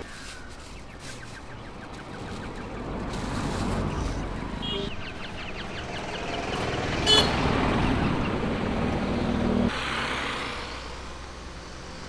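Road traffic: a motor vehicle's engine passing on the road, swelling over several seconds and then dropping away, with a short sharp sound about seven seconds in.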